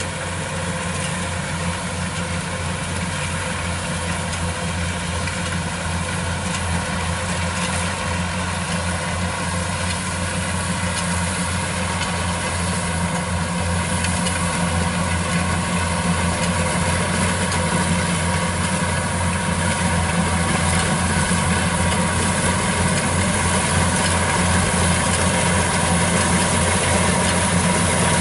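Kubota DC-95 rice combine harvester's diesel engine and threshing machinery running steadily as it cuts rice, growing slowly louder as the machine comes closer.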